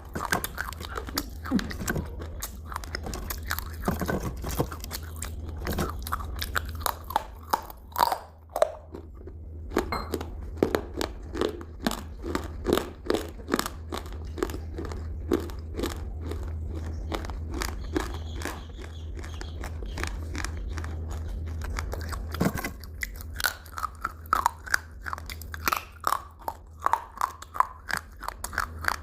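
A person chewing crunchy food close to the microphone: fast, crisp crunches, several a second. There is a sharper bite near the end, followed by crisper crunching.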